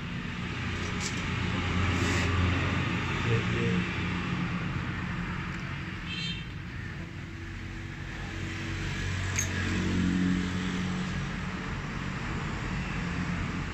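Motor vehicle engine noise, a low hum that swells about two seconds in and again near ten seconds, with a short run of high chirps about six seconds in.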